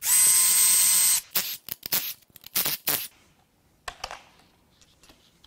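Cordless ratchet running with a steady motor whine for about a second as it spins a bracket bolt out. A quick series of metallic clicks and rattles follows as the loose bolt and socket are handled, then a few faint ticks.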